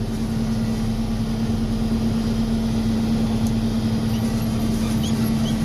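John Deere 6620 combine running steadily while harvesting soybeans, a constant machine drone with a steady hum.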